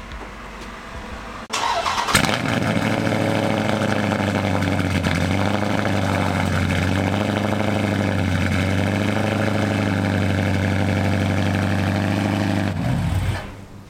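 Dodge Charger's V8 cold-starting: it cranks about a second and a half in, catches with a brief rev flare, then idles steadily. It shuts off about 13 seconds in, because with the check engine light on the car won't keep running.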